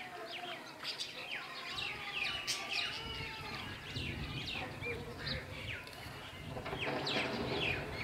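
Several sparrows chirping, with many short, quick downward chirps overlapping one another. A low rumble comes in about three seconds in.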